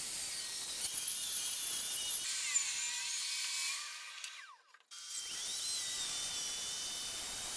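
Table saw ripping an oak board into strips, a steady high-pitched motor and blade whine. It breaks off briefly about four and a half seconds in, then a track saw is heard cutting along a board edge to joint it.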